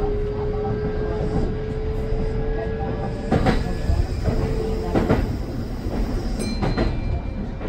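Kintetsu electric train running on the rails, heard from just behind the driver's cab. There is a steady low rumble and a thin whine that rises slightly in pitch and stops about five seconds in. Sharp clacks of the wheels over rail joints come about every second and a half in the second half.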